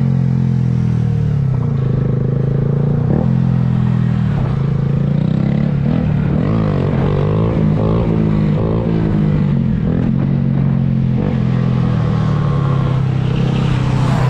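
Small dirt bike engine running steadily, its pitch rising and falling a few times about six to nine seconds in as the throttle is worked.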